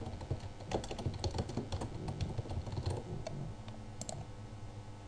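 Typing on a computer keyboard: a quick run of keystrokes for about three and a half seconds, then a single click about four seconds in.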